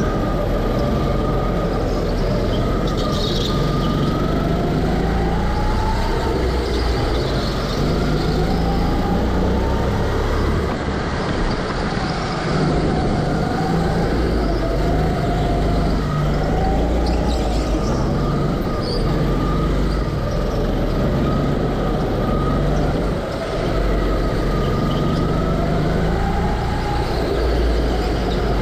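Go-kart running at speed, heard from on board, its motor pitch rising and falling again and again as it speeds up and slows down, over a steady low rumble.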